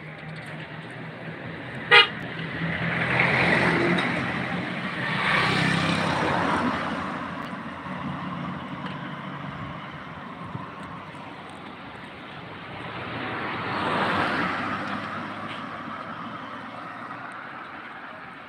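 A car horn gives one short toot a couple of seconds in. Then cars drive past on the road, their engine and tyre noise swelling and fading: two close together soon after the toot and another near the end.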